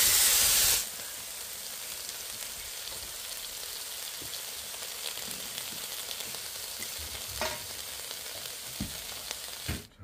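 Shrimp, sausages and vegetables sizzling on a hot flat-top griddle: a loud hiss for the first second, then a steady, quieter sizzle with occasional faint clicks, cutting off just before the end.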